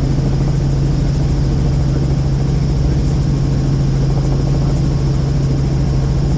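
Helicopter in flight, heard from inside the cabin: a steady, loud drone of engine and rotor with a strong low hum.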